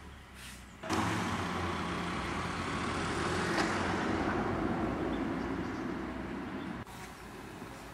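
A motor vehicle running close by on the street, engine and tyre noise, coming in suddenly about a second in. It swells and eases slightly, then cuts off abruptly near the end.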